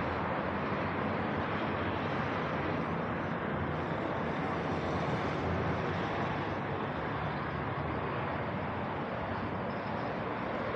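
Steady road traffic noise: cars running on the adjacent multi-lane road.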